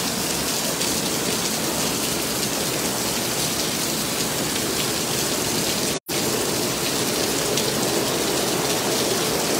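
Very heavy rain pouring down onto paving and a water-covered street, a steady hiss. The sound cuts out for an instant about six seconds in.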